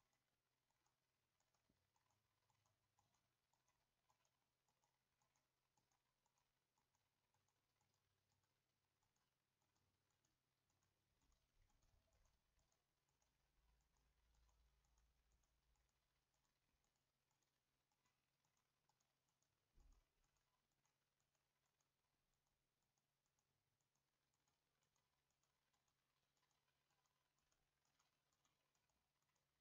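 Near silence with faint computer mouse clicks at a steady pace, about two a second, as points are placed one after another. A single soft thump about twenty seconds in is the loudest moment.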